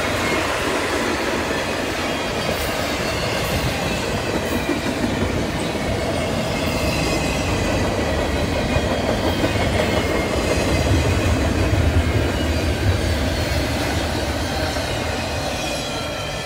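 Double-stack intermodal container cars of a freight train rolling past: a steady rumble and clatter of steel wheels on rail, with faint high squeals from the wheels. It grows loudest about twelve seconds in and starts to fade near the end.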